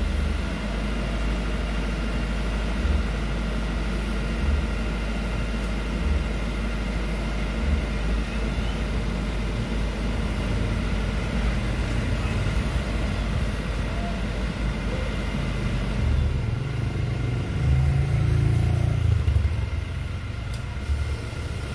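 An old truck's engine running steadily, with a low thump about every second and a half over the first several seconds. From about sixteen seconds in, the low engine sound grows louder and heavier for a few seconds, then eases.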